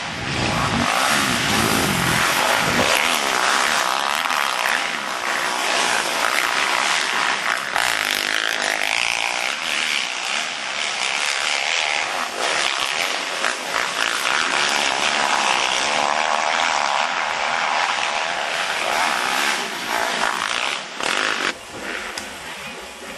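Motocross dirt bike engines revving hard on the track, the pitch rising and falling; quieter near the end.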